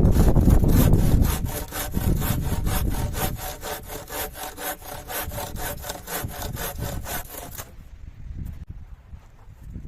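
Hand saw cutting wood in quick, even back-and-forth strokes, about four a second, stopping near the end. Wind buffets the microphone in the first second or so.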